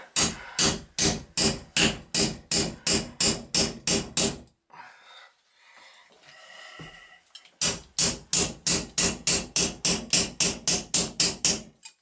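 Rapid, evenly paced hammer taps, about four a second, on an adjustable wrench gripping a seized Symmons shower valve cartridge, to jar it loose. Two runs of taps with a pause of about three seconds between them.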